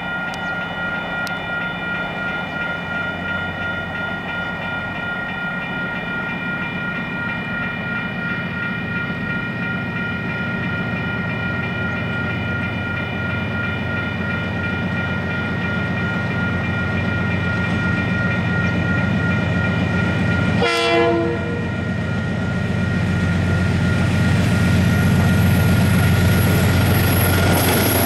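KiwiRail DX-class diesel locomotives hauling a freight train approach and pass, their engine rumble growing steadily louder, with one short horn blast about three-quarters of the way through. A level-crossing alarm rings steadily until the locomotives reach the crossing.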